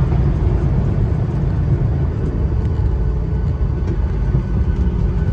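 Steady low rumble of a Boeing 737-800's engines and wheels, heard inside the cabin as the airliner rolls along the ground with flaps extended.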